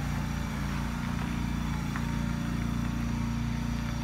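A vehicle engine running steadily at a constant low pitch, with no change in speed.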